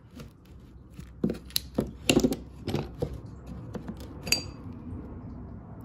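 Steel rocker arms, pins and rocker shaft of a Honda K-series VTEC rocker assembly clicking and clinking together as they are handled and taken apart. The clicks are irregular, with a cluster of sharper knocks in the middle and one brief ringing metal clink about four seconds in.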